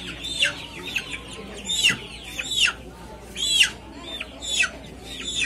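Live chickens clucking and squawking: a string of short, high calls, about two a second.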